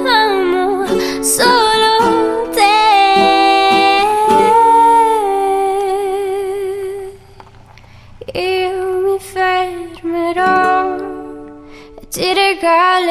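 Italian pop song with a singer holding long, wavering notes over a plucked-string accompaniment; it drops away about seven seconds in, then the singing comes back and swells near the end.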